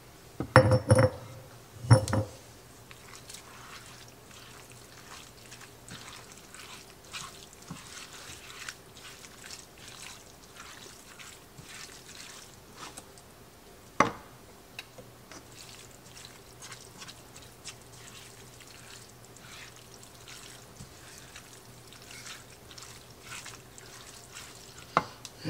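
Thick tomato salsa knocked and scraped out of a glass jar into a skillet of ground beef, with a couple of loud knocks in the first two seconds. Then a spatula stirs the meat and salsa in the pan with soft scrapes and light clicks, and one sharper click about halfway through.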